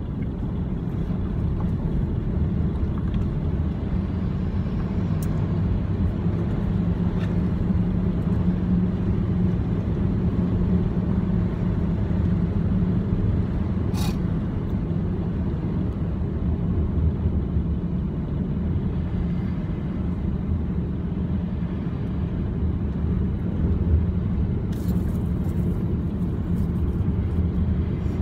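Steady low rumble of a vehicle driving across the ash plain, its engine and road noise running evenly throughout.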